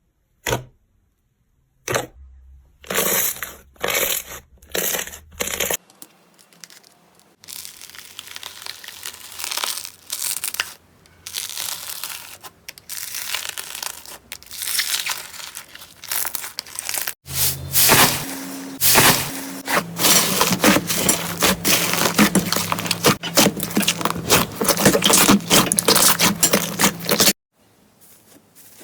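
Slime being squeezed, stretched and poked by hand, giving crackling, crunching and tearing sounds. There are a few separate sharp clicks in the first few seconds, and the crackling grows denser later.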